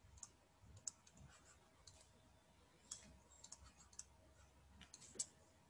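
Faint, scattered clicks of a stylus tapping on a drawing tablet while words are handwritten, with one sharper click near the end.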